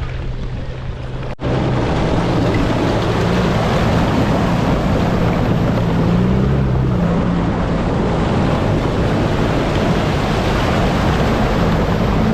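A 4x4's engine running under load as it drives through deep water, with a continuous wash of splashing water over it. The sound drops out briefly about a second and a half in.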